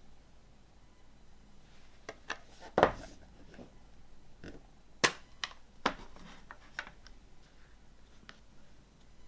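Hands handling a movie box set and its contents: a scatter of sharp clicks and taps, with a louder knock about three seconds in and another cluster of clicks around the middle.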